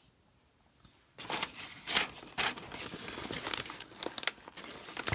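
Tissue paper wrapping crinkling and rustling as hands lift and push it aside, starting about a second in, with a couple of sharper crackles among the rustle.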